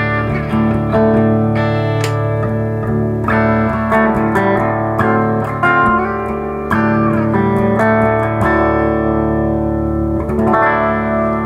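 2013 Gretsch White Falcon G6136T hollow-body electric guitar with Filtertron pickups, played through a Laney amp: chords strummed and left to ring, with a new strum every second or so.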